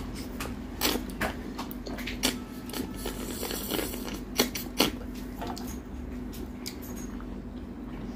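Eating sounds of rice and curry being eaten by hand: wet lip smacks, chewing and fingers squelching in the rice, heard as a string of short clicks with a few louder smacks, over a low steady hum.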